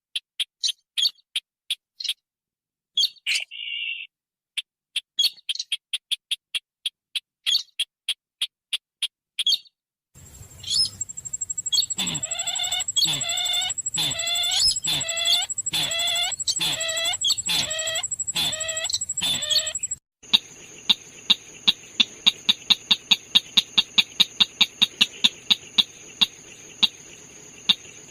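Recorded bird calls used as a lure: about ten seconds of short sharp chirps, then a steady run of repeated falling whistled notes, about one and a half a second, over a constant high whine, then from about twenty seconds quick repeated ticking notes over a steady hum. The cuts between the three parts are abrupt.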